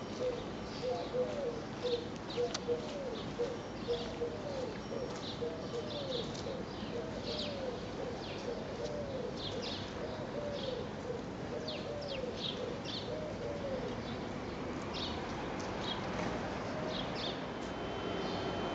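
Pigeons cooing, a long run of repeated rising-and-falling coos that stops about two-thirds of the way through, with small birds chirping high above. A steady high tone comes in near the end.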